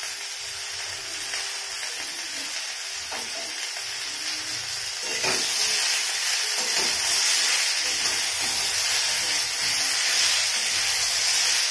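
Potato, carrot and brinjal pieces with fresh ginger paste sizzling as they fry in oil in a metal kadai over a high gas flame, stirred with a metal spatula. The sizzle grows louder about five seconds in, once the stirring starts.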